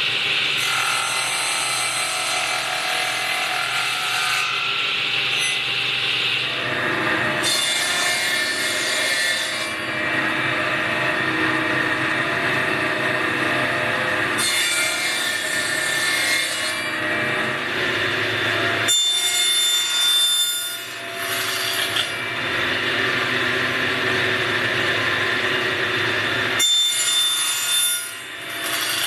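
Table saw running and cutting wood, the blade's steady whine and rasp going on as pieces are fed through, in several separate passes whose tone shifts abruptly from one to the next.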